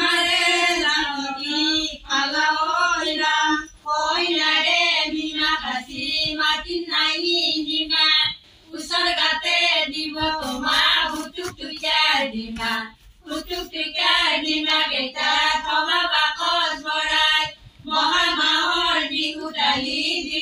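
Women singing an Assamese biya naam, a traditional wedding song, in long phrases with short breaks for breath about every four to five seconds.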